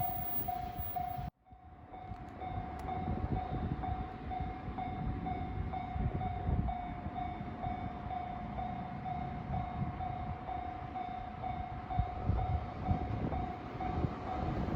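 Japanese level-crossing warning bell ringing, a steady electronic ding about twice a second, over a low rumble as a train approaches. The sound drops out sharply for an instant about a second in.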